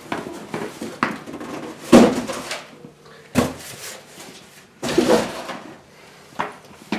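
Cardboard boxes being handled and shifted: a series of separate scrapes and knocks, the loudest a low thump about two seconds in.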